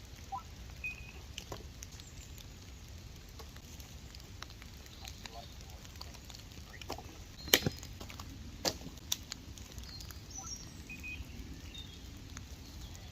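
Woodland outdoor ambience in wet weather: a steady hiss and low rumble with scattered light taps and crackles, two sharper clicks a little past halfway, and a few faint short bird chirps.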